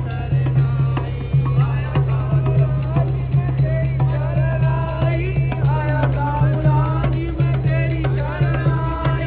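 Sikh devotional music (kirtan): a voice sings a winding, bending melody over a steady, pulsing low drum beat.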